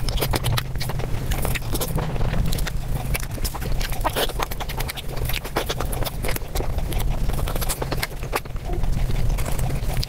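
Close-miked chewing and wet mouth sounds from eating soft Bengali milk sweets, sped up five times into a fast, dense patter of smacks and clicks over a steady low hum.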